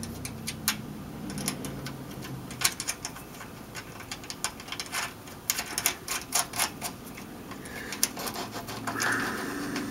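Irregular small metallic clicks and ticks of an exhaust clamp's bolt and nut being handled and fitted by hand, where the clamp joins the heater box to the muffler of a 1971 VW Beetle.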